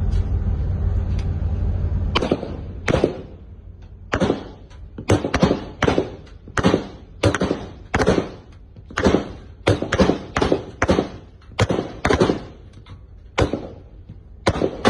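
Single gunshots, about two dozen at an uneven pace of roughly two a second, starting about two seconds in; before them a steady low rumble.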